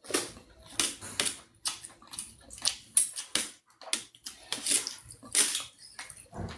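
Close-miked eating: wet chewing and mouth smacks in quick, irregular bursts.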